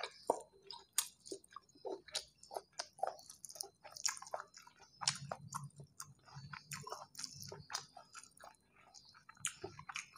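Close-up chewing of rice and curry eaten by hand, with irregular wet mouth clicks and smacks. A low hum comes in partway through.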